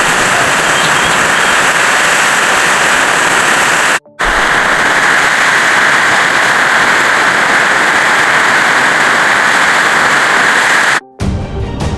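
Heavy rain pouring down, a loud, steady hiss, with a brief break about four seconds in. It stops abruptly near the end as music begins.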